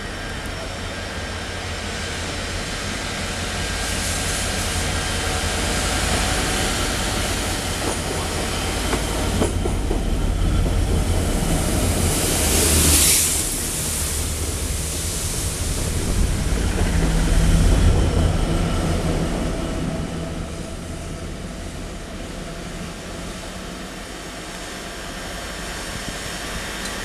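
A freight train of tank wagons hauled by Class 69 diesel locomotives passing close by, with the diesel engine running and the wagon wheels rolling over the rails. It grows louder to a peak as the train passes, with a short hiss about halfway through, then fades.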